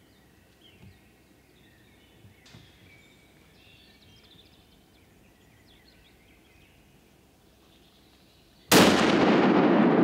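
Faint chirping of small birds over quiet woodland. About nine seconds in, a sudden loud rushing noise cuts in and holds steady.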